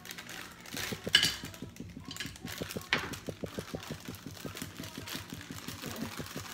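A plastic bag of brownie mix crinkling as it is squeezed and emptied into a bowl, loudest about a second in. Underneath, a steady rapid low ticking, about six a second.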